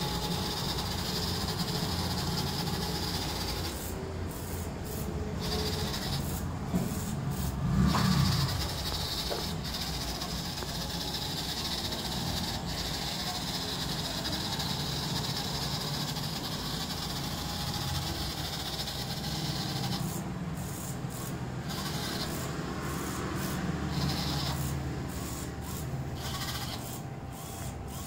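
Small DC gear motors of a two-wheeled Arduino obstacle-avoiding robot car whining as it drives, the whine cutting out briefly several times as the robot stops and starts again. A thump about eight seconds in.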